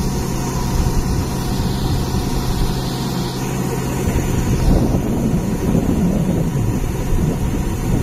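Compact rice combine harvester running steadily, its engine and unloading auger going as grain is discharged through the spout. A higher hiss over the steady hum drops away about three seconds in.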